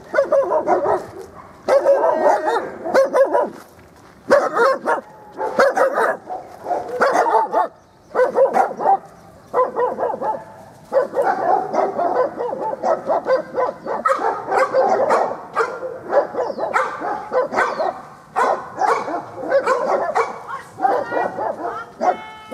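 Black Labrador retriever barking over and over in quick runs with short pauses between, at a wooden box: a rescue dog in training giving its bark alert at a hiding spot.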